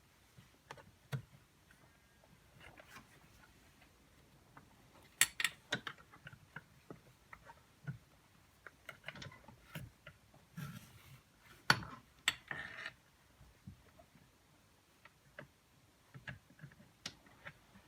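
Irregular light clicks and knocks of metal seatbelt hardware and bolts being handled, with two brief stretches of rustling, likely the belt webbing being moved.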